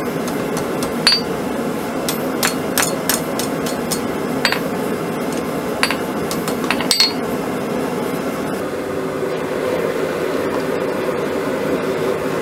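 Hand hammer striking a red-hot 1/4-inch round steel bar on an anvil, curling its tip: about eight ringing blows at an uneven pace, the last about seven seconds in. A steady noise runs underneath and carries on alone after the hammering stops.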